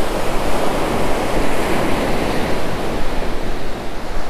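Ocean surf breaking and washing up the beach, swelling in the middle and easing near the end, with wind on the microphone.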